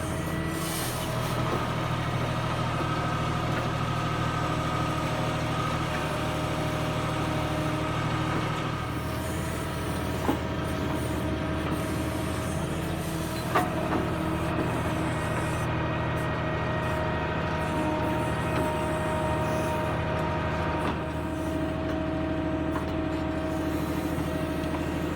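Backhoe loader's diesel engine running steadily, its pitch shifting a couple of times, with two sharp knocks about ten and thirteen seconds in.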